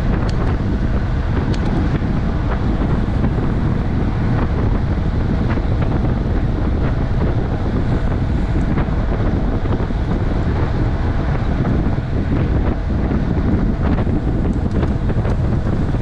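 Wind buffeting the microphone of a bike-mounted camera during a fast road-bike descent: a loud, steady roar of wind noise.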